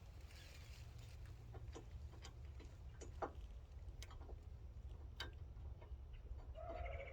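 Scattered light metal clicks and taps at uneven intervals, from bolts being pushed through the D-ring bracket holes and nuts started by hand on a winch bumper. A short rapid trilling chirp comes in near the end.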